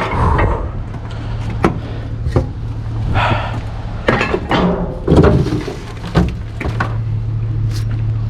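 Heavy chunks of scrap metal being thrown and landing, a series of irregular thuds and knocks, about seven in eight seconds, over a steady low hum.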